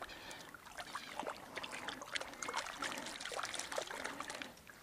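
Small stream water trickling and splashing, with many small, irregular splashes.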